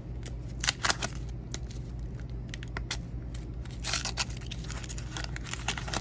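Wax-paper wrapper of a baseball card pack crackling and tearing as it is peeled open by hand, in scattered sharp crinkles, loudest just under a second in and again about four seconds in.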